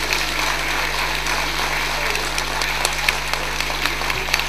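Audience applauding at the end of a performance: dense, steady clapping with a few sharper single claps standing out.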